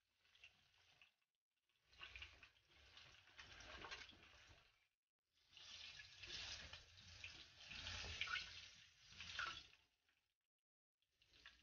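Faint sizzling and crackling of hot frying oil in a cast iron skillet as fried catfish fillets are lifted out, heard in two stretches of a few seconds each.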